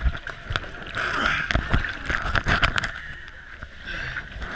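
Water sloshing and splashing, with scattered knocks and bumps.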